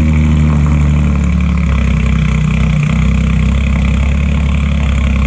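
Porsche 992 GT3's 4.0-litre flat-six idling steadily through a freshly fitted Soul Performance competition valved exhaust with headers.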